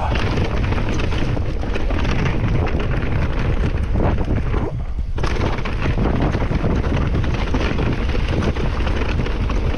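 Mountain bike ridden fast over a rough trail: constant wind buffeting on the microphone over the rattle and clatter of the tyres and frame, easing briefly about five seconds in.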